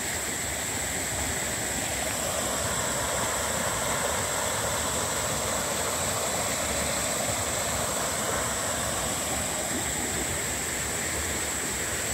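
Shallow creek rushing over rocks and spilling down a low ledge: a steady, even rushing of water.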